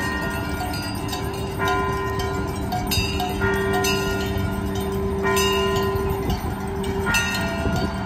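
Fire trucks sounding off together: a bell struck again and again, about every one and a half to two seconds, each strike ringing and fading, over a steady low horn tone.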